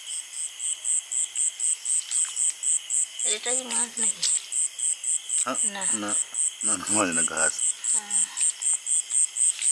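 Night insects calling: one high-pitched chirp repeating evenly about five times a second over a steady insect drone.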